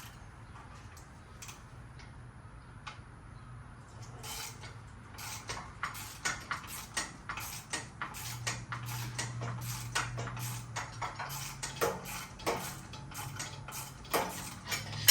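Ratchet wrench clicking as the 19 mm top mount nut on a strut is loosened, the clicks starting about four seconds in and coming several a second in short runs.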